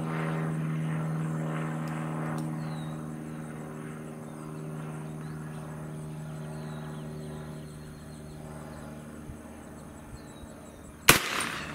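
A single shot from a .300 Blackout AR-style rifle firing a 178 grain ELD-X subsonic load, a sharp report about eleven seconds in and by far the loudest sound. Before it a steady hum runs in the background and slowly fades.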